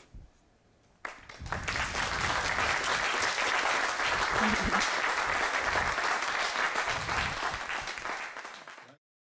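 Audience applauding, starting about a second in after a brief hush and cutting off abruptly near the end.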